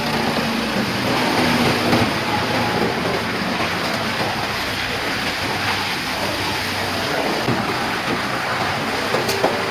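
Large heavy-duty wood chipper running: a steady, dense machine noise over a low hum, with a sharp crack near the end.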